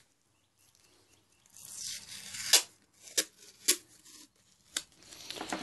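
Adhesive tape being pulled off a roll and torn, with paper being handled. A long rasping pull starts about a second and a half in and ends in a sharp snap, followed by a few short snaps and rustles.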